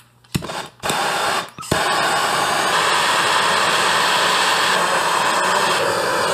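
MAPP gas hand torch lit with a few sharp clicks, then burning with a steady hiss from about two seconds in as its flame heats the steel axle tube.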